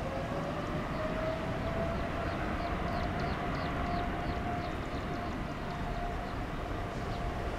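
Boeing 777-300ER's GE90-115B turbofans spooling up to takeoff thrust: a whine that rises in pitch over the first second or so and then holds steady over a rumbling jet noise. A run of short, falling high chirps, a few a second, sounds through the middle.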